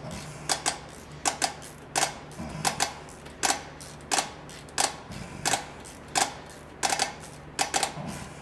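Quarter-inch ratchet turning the adjuster of a Bendix air disc brake caliper, clicking in quick pairs and triplets about once every three-quarters of a second as the brake is rolled back to make room for new pads.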